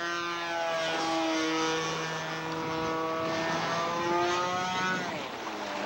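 Engine of a radio-controlled scale Piper Super Cruiser model floatplane in flight, running at a steady pitch, which drops sharply near the end.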